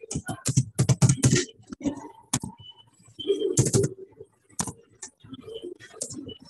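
Typing on a computer keyboard: irregular key clicks in quick runs with short gaps.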